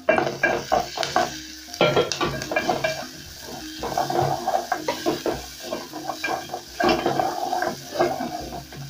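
Wooden spoon stirring and scraping chopped onion with garlic and ginger paste around the bottom of a metal pot, in repeated strokes over the sizzle of the onions frying in oil. This is the sauté stage before the garlic and ginger turn fragrant.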